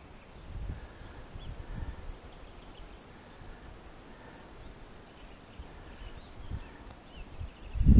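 Wind buffeting the microphone in uneven low gusts, with faint bird chirps and a short bird trill near the end.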